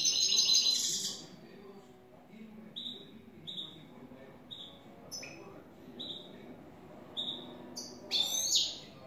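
Caged European goldfinch singing. A fast twittering phrase comes first, then a run of short single notes about one every 0.7 seconds, and another brief twittering phrase near the end.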